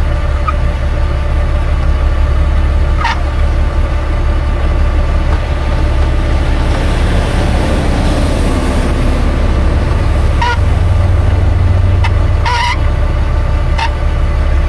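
Vehicle engine running steadily with a low rumble, with a few brief high-pitched squeaks over it.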